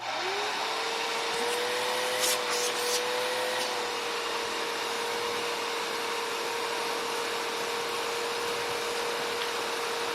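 Bissell Rewind Premier Pet upright vacuum cleaner switching on, its motor spinning up to a steady whine. It runs with a loud rush of air, and a few brief crackles about two to three seconds in as it sucks up a pile of grass and dirt.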